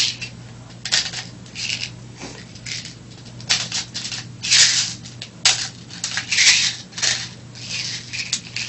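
BBs being pressed one by one into an airsoft pistol's metal gas magazine: irregular small clicks, rattles and scrapes, with a faint steady low hum underneath.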